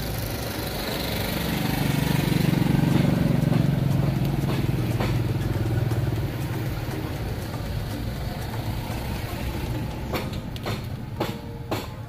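A motor vehicle engine running steadily, growing louder a couple of seconds in and then easing back. A few sharp clicks and taps come near the end.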